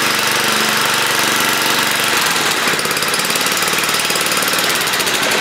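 Cub Cadet 33-inch walk-behind self-propelled mower's engine running steadily, its tone shifting about two seconds in.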